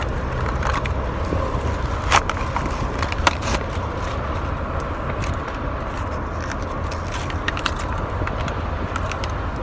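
Plastic blister and cardboard of a Hot Wheels package crackling and cracking as it is torn open by hand, with sharp cracks about two and about three seconds in. Under it runs the steady low rumble of a car cabin.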